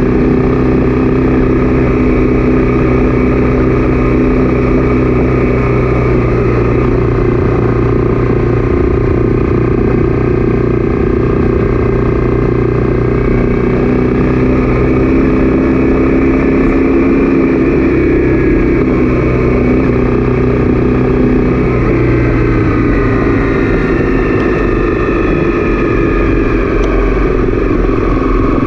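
Honda CB300F single-cylinder engine running under way, heard from the bike itself. Its pitch holds steady, then falls over the last several seconds as the bike slows.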